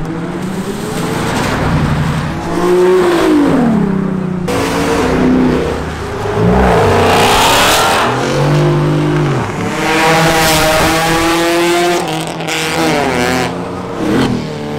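Performance cars accelerating hard away one after another, engines revving up in pitch and dropping back at each gear change.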